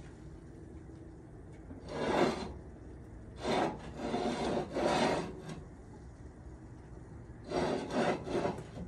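Metal tool scraping inside a homemade wood-fired pizza oven, in short rough bouts about two, four to five, and eight seconds in.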